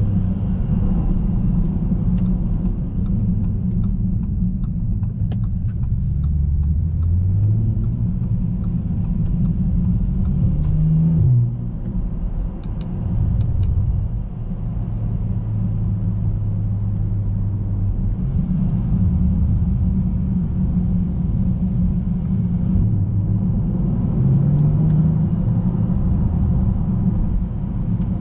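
A 2019 Bentley Continental GT heard from inside the cabin on the move: a steady low engine and road rumble. The engine note climbs about six to eleven seconds in, then drops away and settles steady, and climbs briefly again near the end. A few seconds in there is faint, even ticking.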